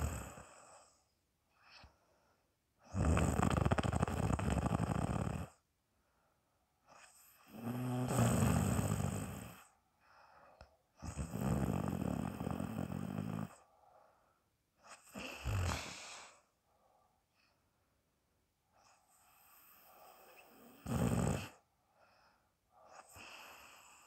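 A sleeping person snoring: about six loud snores a few seconds apart, each lasting one to two and a half seconds, with quiet between them.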